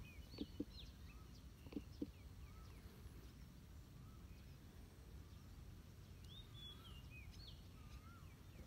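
Faint rural outdoor ambience of small birds chirping: quick high chirps and a repeated lower rising-and-falling note about once a second, over a low steady rumble. Two pairs of short sharp clicks come in the first two seconds.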